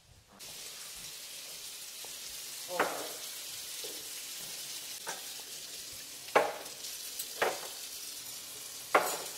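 Kitchen faucet running into a sink, turned on about half a second in, with a mug and glass cups being rinsed and set down, knocking against the sink about five times.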